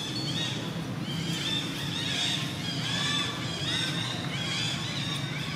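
Newborn long-tailed macaque crying: a rapid run of short, high-pitched, arching squeals, several a second.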